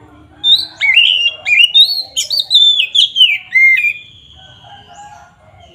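Oriental magpie-robin singing a loud, clear phrase of varied whistled notes with sharp up-and-down slurs, starting about half a second in and ending in a long, slowly falling whistle.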